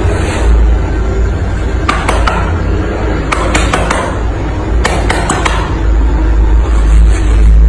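Background music with a steady deep bass, and a string of about eight sharp clicks or knocks through the middle.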